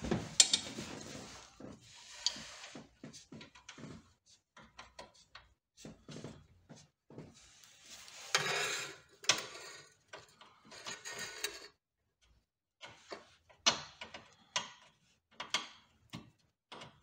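Irregular metal clicks and clinks mixed with brief rustling, as nuts and washers are spun by hand onto the rear suspension arm bolts.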